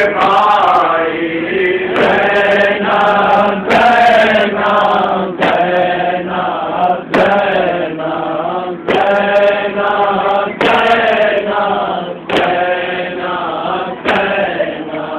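Group of men chanting a noha, a Shia lament, in a steady rhythmic melody. A sharp beat from matam chest-beating falls in time with it about every second and a half to two seconds.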